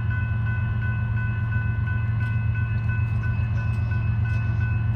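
BNSF diesel-electric locomotives running past with a steady deep engine rumble and a thin, steady high whine above it.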